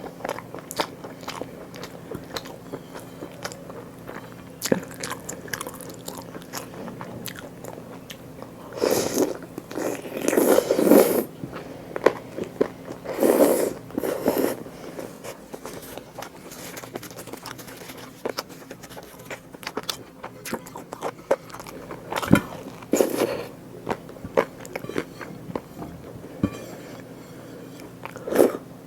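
Close-miked chewing and biting of food, with many small wet mouth clicks and a few louder bursts of chewing.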